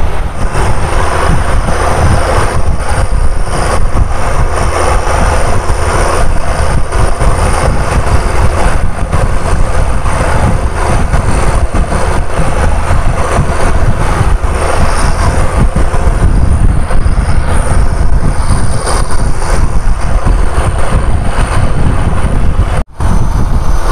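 Fishing boat engine running steadily under way, mixed with wind buffeting the microphone and choppy water. The sound drops out for an instant near the end.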